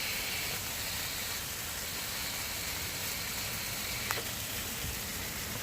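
Minted lamb shoulder chops frying in a RidgeMonkey pan, a steady sizzle, with one faint click about four seconds in.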